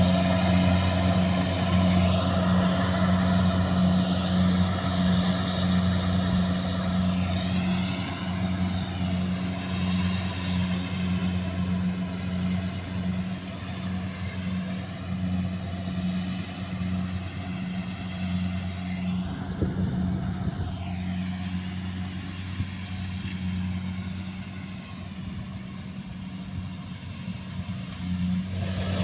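Kubota rice combine harvester's engine running steadily under load as it cuts rice, a deep hum that grows gradually quieter as the machine moves away. A higher whine rises and falls briefly twice.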